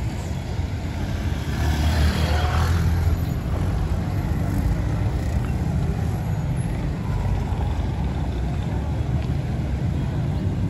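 Road traffic: truck and car engines run as a steady low rumble, and a louder rushing pass swells and fades about two seconds in.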